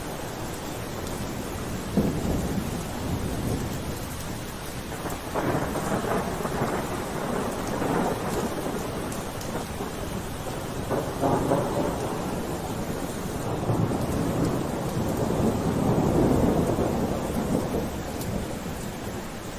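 Steady rainfall with rolling thunder: low rumbles swell and fade several times over the rain, the longest and loudest about three-quarters of the way through.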